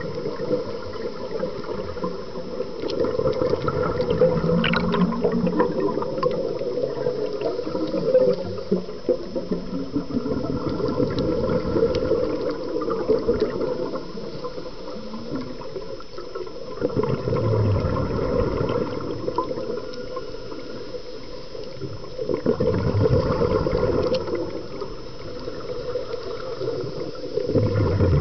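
Underwater water noise picked up through the camera: a steady rushing and gurgling that swells louder about every five seconds.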